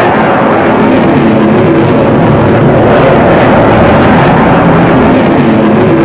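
An F-16 Fighting Falcon fighter jet flying past overhead, its single jet engine loud and steady.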